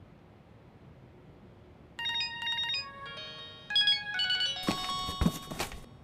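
Mobile phone ringtone: a tune of short electronic notes that starts about two seconds in and grows louder near the end.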